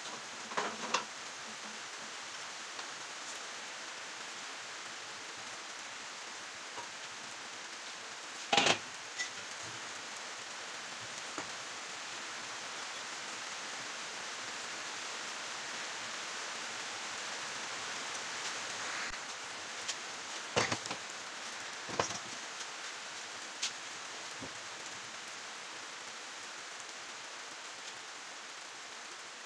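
Steady hiss of background noise, broken by a few sharp knocks and clicks of steel fence parts being handled on a wooden workbench, the loudest about eight seconds in.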